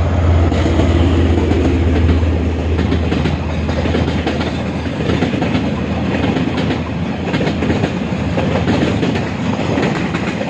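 KiwiRail diesel train passing close by: the locomotive's deep engine drone is strong for the first five seconds or so and then eases, leaving the wagons rumbling and clattering over the rail joints.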